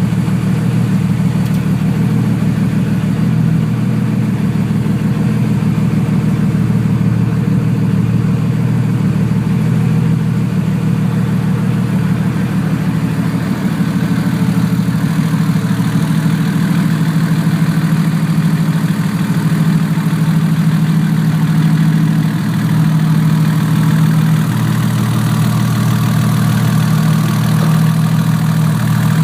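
Turbocharged engine idling steadily, with a small exhaust leak at the turbo flange.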